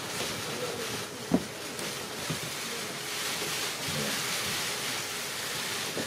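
Steady hiss-like room ambience with a single sharp knock about a second and a half in.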